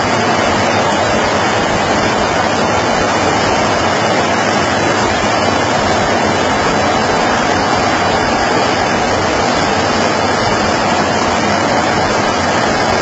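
Steady, loud rushing noise with no distinct tones.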